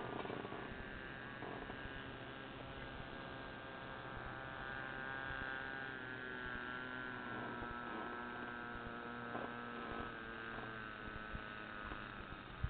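Motor of a radio-controlled model boat running steadily, heard from on board: a hum with a stack of whining tones that dip slightly in pitch about six seconds in.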